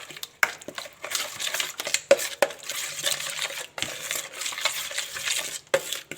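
A spoon stirring in a small bowl, scraping and clinking repeatedly against its sides as spices are mixed with a little water.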